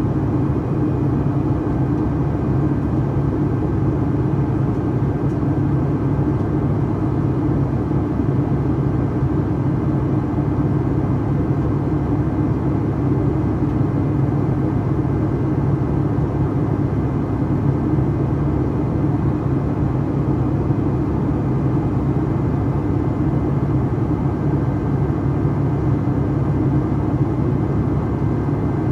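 Boeing 757-300 jet engine and airflow heard from a cabin seat over the wing during the climb: a steady, even drone with a low hum underneath.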